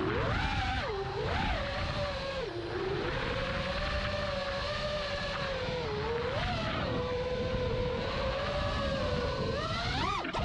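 FPV quadcopter's T-Motor F40 IV brushless motors whining, the pitch dipping and rising with the throttle, then climbing sharply near the end.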